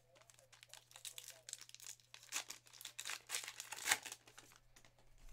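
A 2023 Topps Archives baseball card pack's wrapper being torn open and crinkled by hand: a run of crackling rustles lasting a few seconds, loudest about four seconds in.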